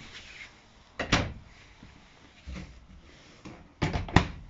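Travel trailer cabinet and interior doors being handled. A sharp knock comes about a second in, a dull thud midway, and a quick run of knocks near the end.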